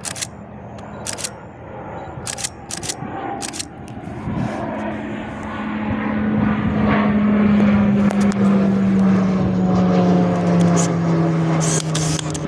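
Pilatus PC-21 turboprop flying past, its propeller drone growing louder and then slowly falling in pitch as it goes by.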